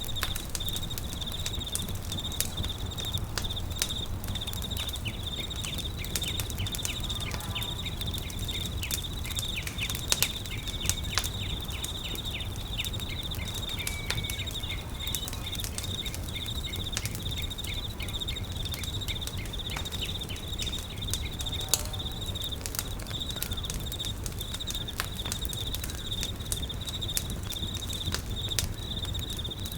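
Campfire crackling, with scattered pops, a few louder ones, over a steady, rapidly pulsing high insect trill and a low rumble.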